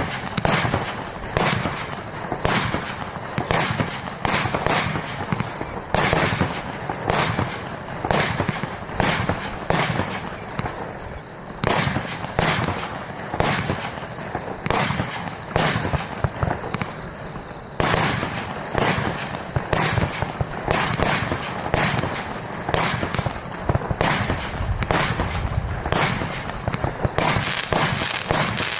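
Compound firework cake with 16 mm tubes firing a continuous barrage: sharp reports come roughly one to two a second over a steady rush of smaller shots and bursts.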